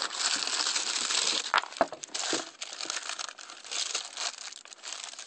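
Tissue paper rustling and crinkling as a sneaker is unwrapped inside a cardboard shoebox, busiest in the first couple of seconds, with two sharp taps about a second and a half in.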